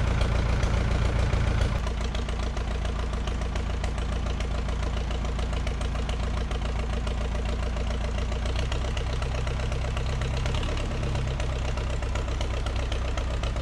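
Tractor engine running steadily, easing to a slightly lower, quieter run about two seconds in.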